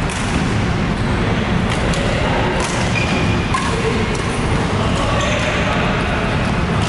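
Badminton rally: a few sharp racket strikes on the shuttlecock over the steady loud din of a sports hall.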